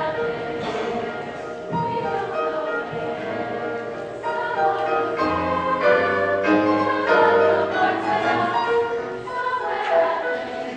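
Show tune from a stage musical: an ensemble chorus singing over the backing music.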